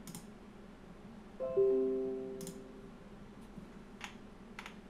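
Computer notification chime marking a confirmed wallet transaction: three piano-like notes, each lower than the last, start about a second and a half in and ring out over about a second and a half. A few soft mouse clicks are heard around it.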